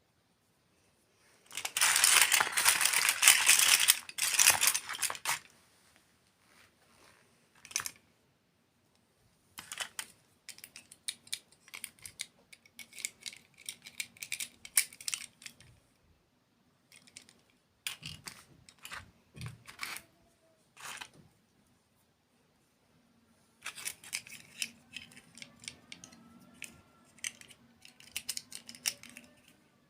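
Close-miked food and packaging handling during a dessert mukbang: a loud, dense crackling about two to five seconds in, then scattered sharp clicks and short crackles in clusters.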